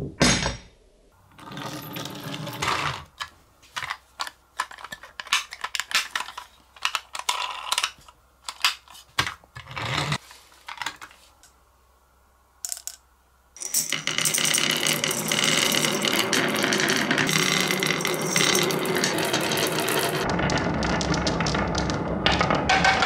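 A ball knocks as it drops off the end of a wooden track, then glass marbles click against each other in a clear tube. About thirteen seconds in, a whole batch of glass marbles is rolling and rattling down a wooden zigzag slope in a continuous clatter.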